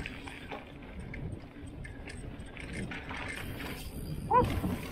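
Nukeproof Giga mountain bike rolling fast down a packed-dirt trail: tyre rumble with the chain and parts rattling and clicking over bumps. About four and a half seconds in, a brief loud pitched squeak that bends in pitch.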